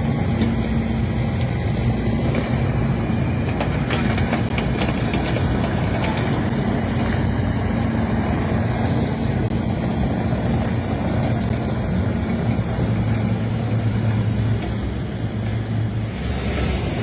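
Heavy diesel vehicles, lorries and a digger, running steadily with a low engine hum.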